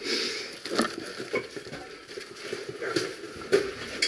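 Scrapes, rustles and a few sharp knocks of gear being handled and shifted against rock. The loudest knock comes about three and a half seconds in.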